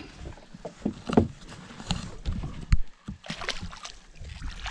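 Low knocks and thumps on a fishing boat's deck and hull, the loudest about a second in and near three seconds. After about three seconds, water splashing against the side of the boat as a musky is held in the water and released.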